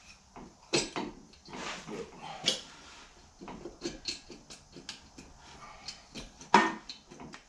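Irregular metal clunks and knocks as the aluminium cylinder head of a Norton Commando 750 twin is worked loose and lifted off the engine by hand. The loudest is one sharp knock about six and a half seconds in.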